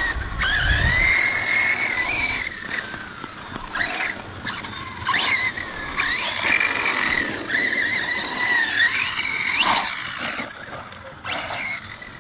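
High-pitched whine of a radio-controlled model's electric motors, rising and falling in pitch with the throttle, with a sharp rise near the end.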